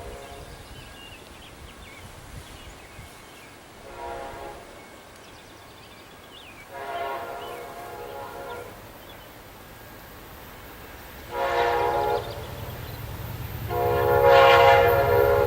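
Amtrak GE P42DC locomotive's air horn playing a series of chord blasts: a short one, a longer one, another short one and a final long blast that is the loudest. A low train rumble grows under the last few seconds as the train draws near.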